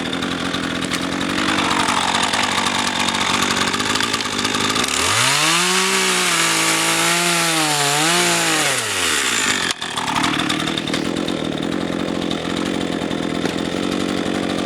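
RedMax GZ400 two-stroke chainsaw running and cutting through firewood logs. About five seconds in, the engine revs up sharply, holds high with slight dips under load, then drops back down near ten seconds.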